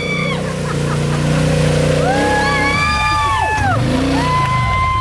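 Polaris Sportsman 850 ATV engine running under load as the quad ploughs through deep mud; its pitch dips and recovers near the end. Over it, two long, high whoops from people watching.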